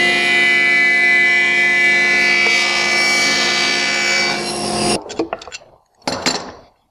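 SawStop table saw running with its blade cutting a bevel along the edge of a wooden panel stood on end: a steady motor whine mixed with the noise of the cut. It stops abruptly about five seconds in, and a few light knocks of the wooden panel being handled follow.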